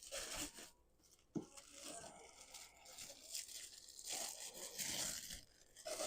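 Statue packaging being handled and pulled open: plastic and paper rustling and tearing in irregular bursts, with one sharp click about a second and a half in.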